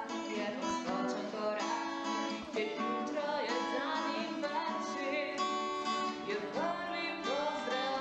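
Background music: a song with acoustic guitar and a singing voice.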